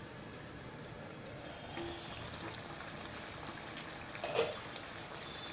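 Chicken pieces simmering in a thin, watery gravy in a kadhai: a steady, quiet bubbling hiss. A brief louder sound comes about four seconds in.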